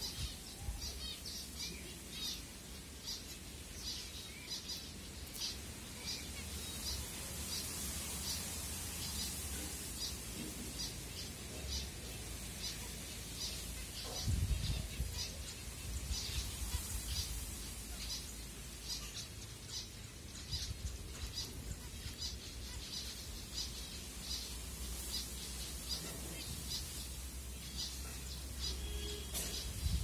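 A flock of zebra finches calling: short, high chirps repeated two or three times a second, over a steady low rumble.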